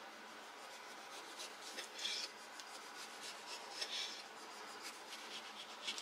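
Kitchen knife sawing through a tomato on a wooden cutting board: faint rasping strokes as the blade cuts through the skin and flesh, a little stronger about two seconds in and again near four.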